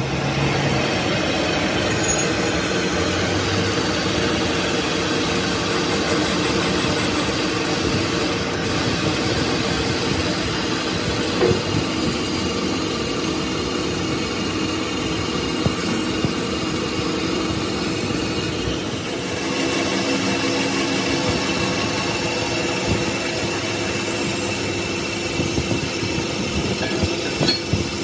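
Lathe spinning a truck flywheel while a belt-driven tool-post grinder's abrasive wheel grinds its friction face to resurface it: a steady machine whir with a grinding hiss. The pitch of the whir shifts about two-thirds of the way through.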